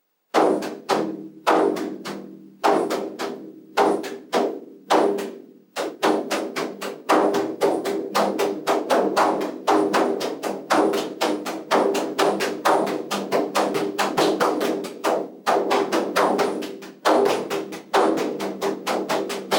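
Bodhrán (Irish frame drum) being played: single spaced strikes at first, then a fast, steady rhythm from about six seconds in, with a couple of brief breaks. Each stroke rings with a low drum tone.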